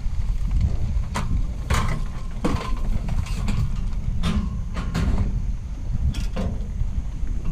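Van running with a steady low rumble, with about nine sharp knocks and rattles scattered through it.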